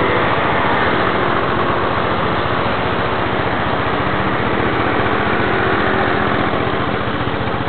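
Motor scooter engine running with a steady note over a constant rushing noise.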